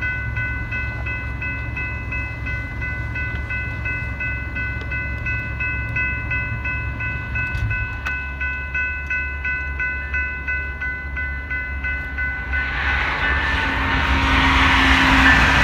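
Railroad crossing bell ringing about three times a second over the low rumble of approaching BNSF GE diesel locomotives. About thirteen seconds in, a rushing noise from the lead locomotives and their wheels on the rails swells and gets louder as the train reaches the crossing.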